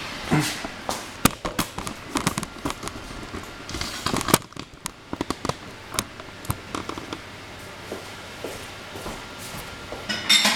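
Irregular sharp clicks and crinkly crackles, thickest in the first half, with a louder clatter near the end: a freshly microwaved sponge cake in a folded parchment-paper ramekin being handled.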